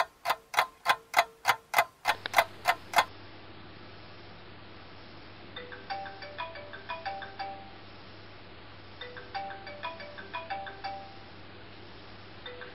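A clock ticking about three times a second, stopping about three seconds in. A short chiming alarm melody follows, played twice with a pause between and starting again near the end, over a low steady hum.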